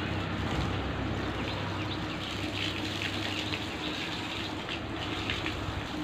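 Water running from a garden hose and splashing as a cow is washed down, a steady gushing with scattered light splashes. A steady low hum runs underneath.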